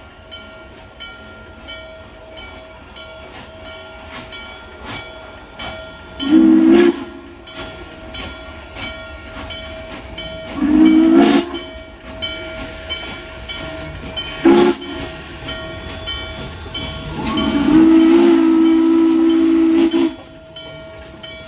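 Steam locomotive whistle of Norfolk & Western 611 sounding the grade-crossing signal: two long blasts, a short one, and a final long one. Under it the train runs steadily with regular clicking.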